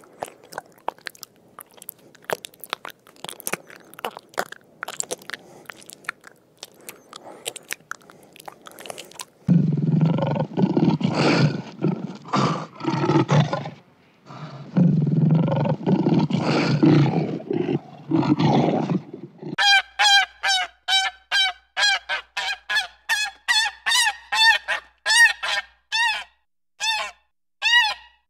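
Faint irregular clicking and crackling for the first third, then two long bouts of deep, rumbling lion roaring, then a black swan's repeated honking call, short pitched notes about two a second.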